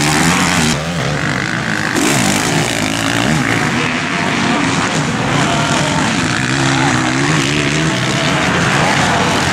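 Motocross bikes running hard, their engines revving up and down as they race over the dirt track. The sound changes abruptly about a second in and again at two seconds, where the clips are cut together.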